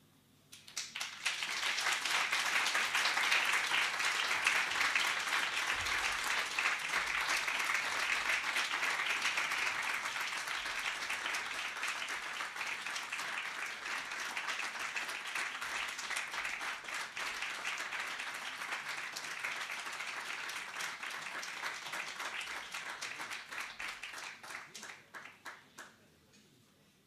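Audience applauding with dense clapping, thinning to scattered individual claps and stopping near the end.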